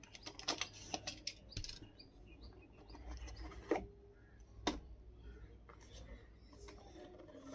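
A small blade scratching and clicking as it slits the seal on a cardboard smartphone box: a quick run of sharp scratches in the first two seconds. Then a few separate clicks and rubs of cardboard as the box is opened, two of them louder near the middle.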